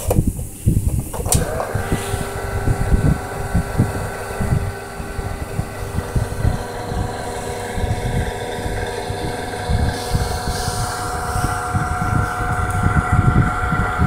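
Sports-car-shaped VHS tape rewinder: a click about a second in as the lid shuts, then its motor spins up and runs with a steady whine while it rewinds the cassette, over an irregular low rumble.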